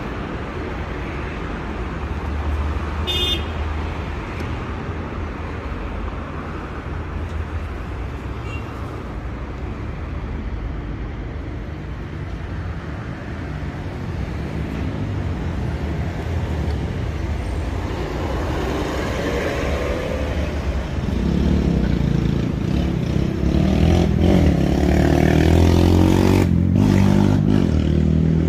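Street traffic noise: a steady low rumble of passing vehicles, with one vehicle's engine growing louder over the last several seconds.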